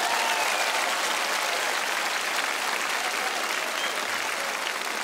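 A large audience applauding, a dense steady clapping.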